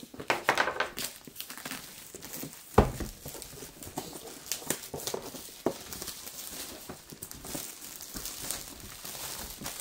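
Clear plastic shrink wrap crinkling and crackling as it is peeled off a cardboard box, with one sharp knock just under three seconds in.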